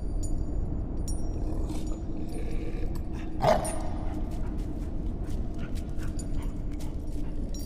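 A wolf-like dog gives one short cry about three and a half seconds in, over a steady low drone and scattered faint clicks.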